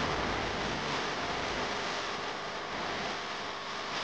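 Steady rushing background noise, even and unbroken, with no distinct clicks or knocks.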